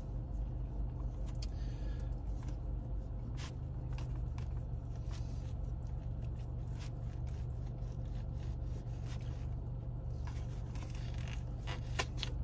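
Plastic knife and fork scraping and clicking against a plastic takeout tray while cutting through chicken, in short irregular strokes over a steady low hum.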